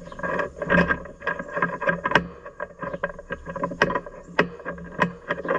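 Steel roller drive chain on a Great Plains 1006NT drill clattering and clinking irregularly as it is fed through the drive's sprockets and idlers, over a faint steady hum.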